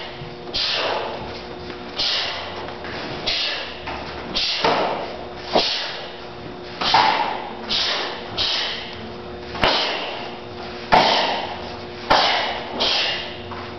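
Two taekwondo students performing a pattern in unison: a quick swish and snap of their uniforms with each technique, about one a second, and a few sharper thuds of feet on the mat, echoing in a large hall.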